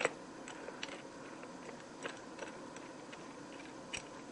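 Faint, scattered light clicks and taps, a sharper click at the very start, as the clamped pocket-screw joint and the metal clamp are handled on the bench.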